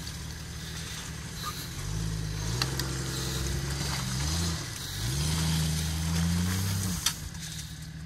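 An SUV's engine revving under load as it pushes through deep mud. The pitch rises about two seconds in and holds, dips briefly near the middle, then climbs higher again. It drops off with a sharp click about seven seconds in.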